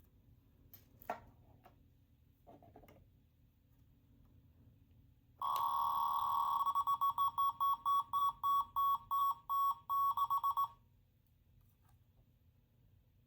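Small electronic sound toy from a capsule machine, pressed with a click, then sounding an electronic alarm-like beep: steady for about a second, then pulsing rapidly for about four seconds before it stops.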